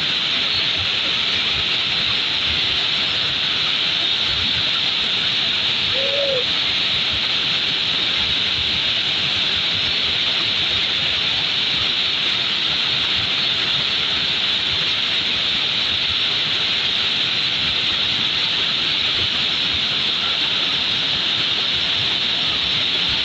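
Muddy floodwater rushing and cascading over rocks in a steady, unbroken hiss, brightest in the high range. A short hoot-like tone sounds once about six seconds in.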